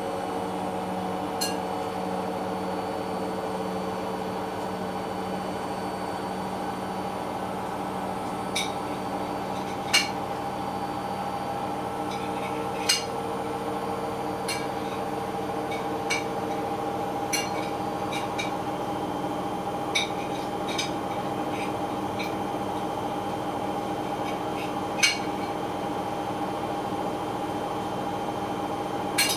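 Hoover H-Wash 500 washing machine running mid-cycle: a steady motor hum, with sharp clinks at irregular intervals of one to a few seconds.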